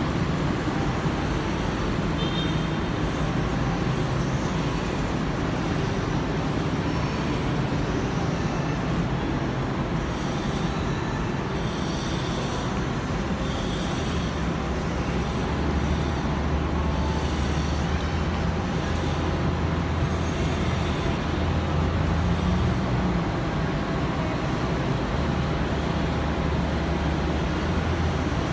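City street traffic: cars and vans driving past, a steady hum of road noise. A deeper rumble grows stronger about halfway through.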